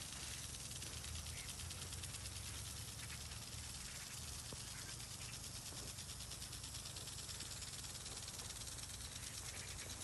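Faint, steady outdoor background hiss with a low rumble underneath.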